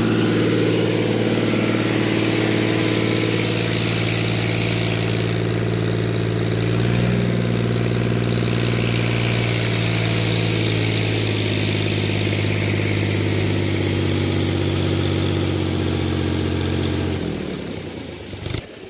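Fiat 480 tractor's diesel engine running steadily at full throttle, driving a PTO water pump, with water gushing from the outlet pipe. Near the end the engine note drops away suddenly as the throttle is pulled back.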